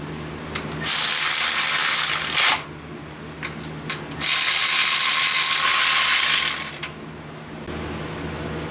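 Power ratchet running in two bursts of a second or two each, with a few clicks between, as it runs down the intake manifold bolts on a Buick Grand National engine.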